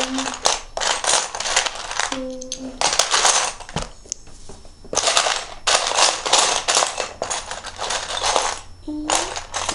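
Loose plastic Lego bricks clattering as a hand rummages through a pile of pieces. The rattling comes in several spells of rapid clicking with short pauses between them.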